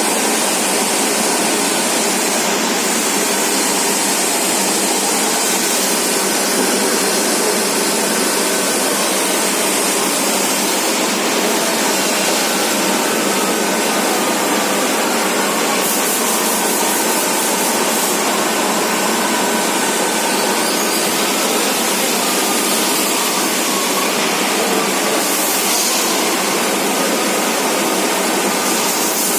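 All-geared lathe under CNC control running: a loud, steady machine noise with a faint steady whine.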